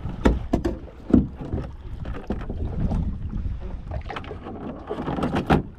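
A gillnet and its rope being hauled in by hand over the wooden gunwale of a small boat, making irregular knocks and scrapes against the hull, over a low rumble.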